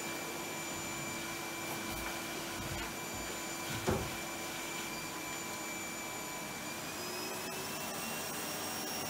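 Vacuum cleaner running steadily, its motor whine rising slightly in pitch near the end, with one thump about four seconds in.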